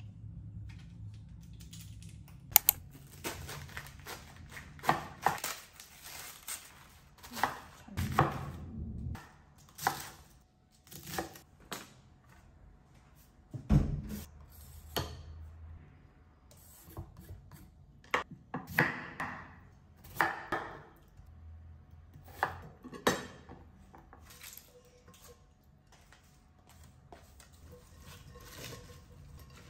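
Kitchen clatter: irregular sharp knocks of a chef's knife on a wooden cutting board as cabbage is cut and handled, with softer handling sounds of cut cabbage in a glass bowl near the end.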